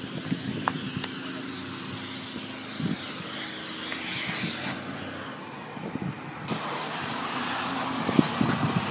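A fire truck's engine running steadily at idle, with a few short knocks about three and eight seconds in.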